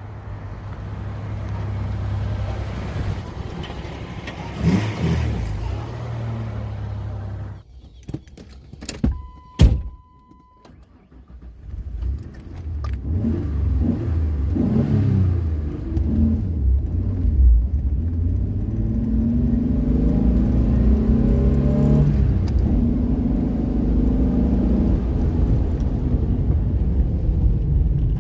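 1997 Ford Explorer's V6 idling through a Flowmaster exhaust. About 8 seconds in, the engine sound drops away, leaving a few clicks and a short beep. Around 12 seconds in it comes back, rising and falling in pitch with a few revs before settling into a steady idle.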